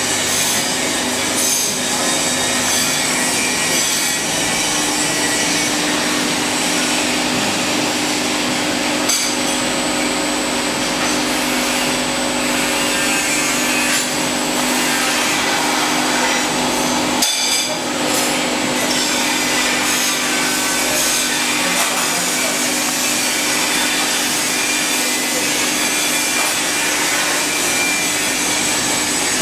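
Deheading conveyor running: its geared motor drives and belts give a steady hum under a continuous hiss, with a brief dip about seventeen seconds in.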